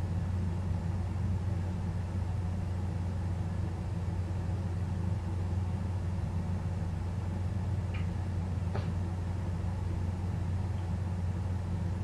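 Steady low electrical hum, strongest in a deep band with fainter evenly spaced tones above it. A couple of faint, short clicks come about eight and nine seconds in.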